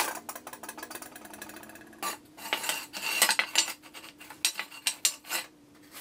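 Quick metallic clanks and clinks of exhaust pipe and muffler sections being handled and set down on a concrete floor, thickest in the middle seconds, over a faint steady hum.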